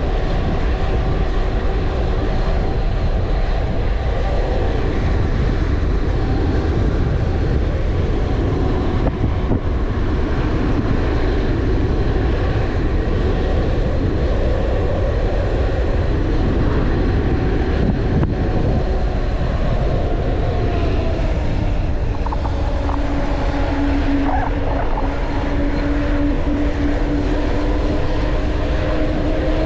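Wind rushing over the microphone of a handlebar-mounted camera on a mountain bike rolling fast downhill on tarmac, a loud steady rumble. A steady hum runs underneath it and grows stronger near the end.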